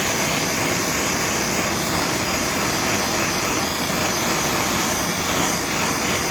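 Handheld gas torch burning with a steady hissing roar, its flame heating and shrinking a heat-shrink sleeve over a crimped wire terminal.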